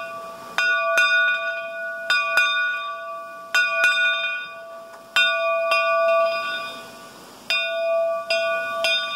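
Bell of a Shay geared steam locomotive, rung by hand. It is struck about eleven times at uneven intervals, mostly in pairs, and each strike rings out with a clear, steady tone that fades before the next.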